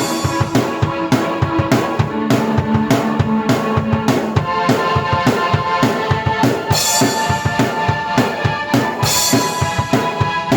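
Drum kit playing a busy beat of kick drum and snare under sustained keyboard chords and melody. Bright cymbal crashes ring out about seven and nine seconds in.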